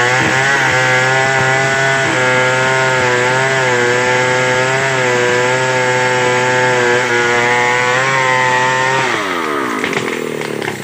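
Stihl 070 two-stroke chainsaw running at full throttle, cutting into the trunk of a large hardwood tree, its pitch wavering slightly under load. About nine seconds in the throttle is released and the engine winds down, and a few sharp snaps follow near the end.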